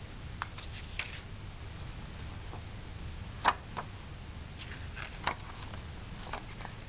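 Hands handling a CD booklet and its plastic jewel case: scattered soft clicks and paper rustles as the booklet is lifted out and its pages are turned, with one sharper click about halfway through, over a low steady hum.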